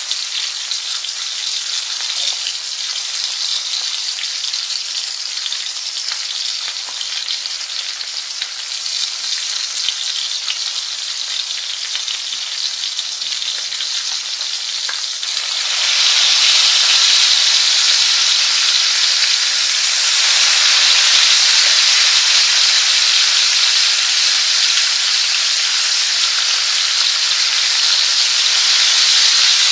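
Food frying, a crackling sizzle that becomes a louder, fuller steady hiss about halfway through.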